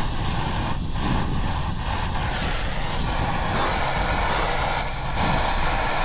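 Brazing torch flame hissing steadily with a low rumble as it heats the copper joint of a filter drier while brazing rod is melted into it.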